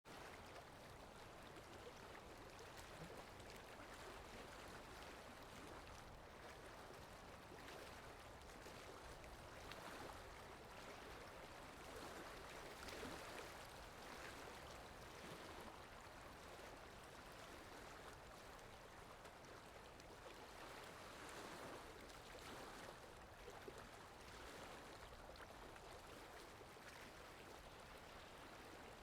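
Faint water lapping in soft, irregular swells every few seconds, over a steady hiss of wind.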